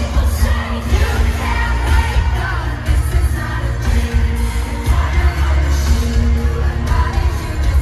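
Live pop concert music played loud over a venue sound system: a female singer's vocals over heavy, steady bass and synths.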